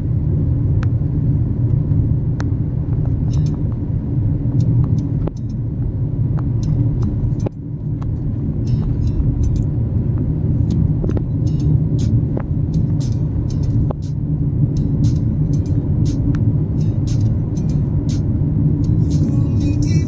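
Steady low road and tyre rumble of a moving car, heard from inside the cabin, with scattered light clicks and ticks throughout. The rumble dips briefly about seven and a half seconds in.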